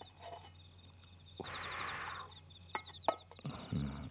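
Papers and small objects being handled on a cluttered table: a rustle about a second and a half in, then a few sharp clicks and knocks, and a short low grunt near the end. Crickets chirp steadily in the background.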